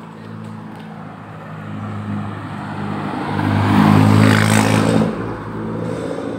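A car driving past close by. Its engine hum and tyre noise swell to a peak about four seconds in, then die away quickly.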